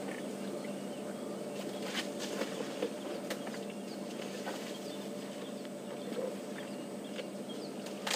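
Elephants feeding at a fallen marula tree: a few sharp snaps and cracks of branches, bunched about two to three seconds in, over a steady low hum, with faint bird chirps.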